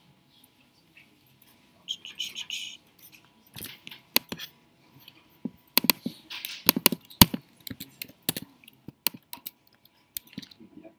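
Laptop keyboard keys pressed in irregular sharp clicks, most of them bunched in the middle seconds. There is a brief scratchy noise about two seconds in.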